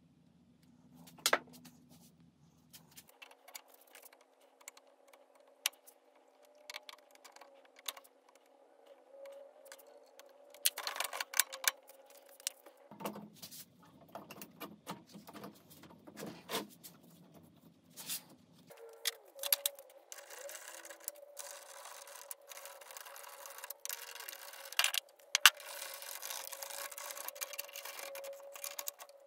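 Workshop handling sounds: scattered clicks, taps and scrapes of engine parts and hand tools being worked on.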